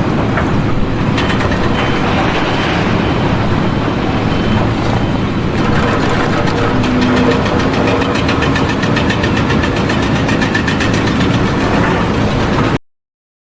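Loud, steady running machinery with a heavy engine-like noise and a fast rattling texture, cut off suddenly near the end.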